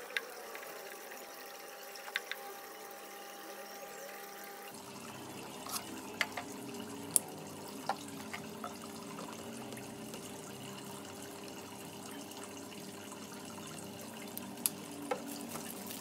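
Brown shoe paint poured into a small plastic bowl, with scattered light clicks and taps over a steady low hum.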